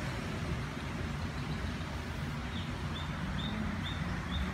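Steady low rumble of the ride boat moving along its water channel. About halfway through, a bird gives a run of five short, evenly spaced high chirps.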